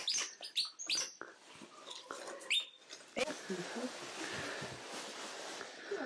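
Small monkeys making rapid high, falling squeaky chirps in the first second, with one more chirp about two and a half seconds in. From about three seconds a steady hiss of rainforest background takes over.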